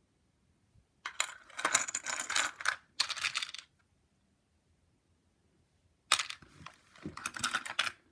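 Jewelry pieces clinking and rattling together as they are picked through by hand, in two bursts of a couple of seconds each.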